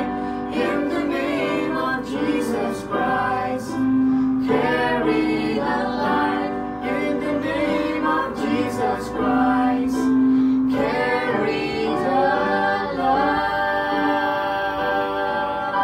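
A woman, a boy and a man singing a gospel song together, the boy into a handheld microphone, ending on a long held note near the end.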